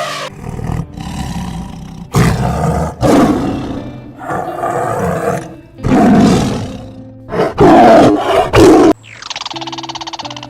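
A big cat roaring again and again, about six loud roars, over soft background music. Near the end a different buzzing, rapidly pulsing animal call takes over.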